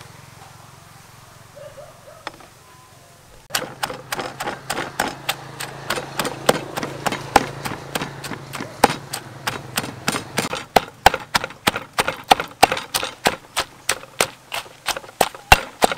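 Stone pestle pounding dried red chillies in a stone mortar, starting about three and a half seconds in as a steady run of sharp knocks, about three a second.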